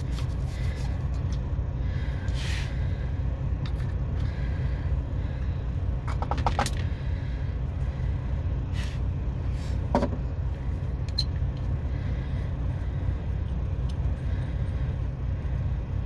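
Truck engine idling, a steady low rumble, running to charge the truck's low inverter battery. A few brief light clicks and knocks sound over it.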